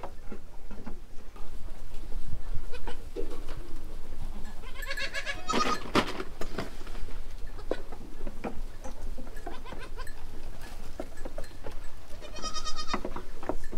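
Goats bleating twice, once about five seconds in and again near the end. Scattered light clicks and rustles run between the calls.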